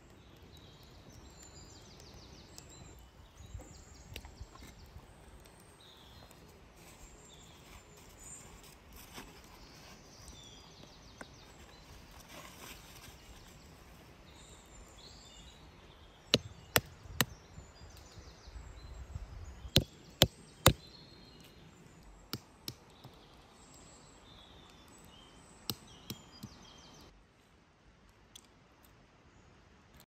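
Forest ambience with faint birds chirping, then two quick runs of sharp cracks, about three each: walnut shells cracking open, with a few softer cracks later.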